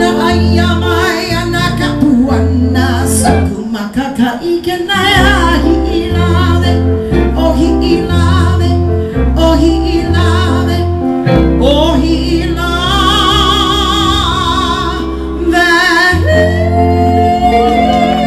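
Live, amplified Hawaiian-style music for hula: a singer with wavering held notes over band accompaniment and a bass line that moves note by note.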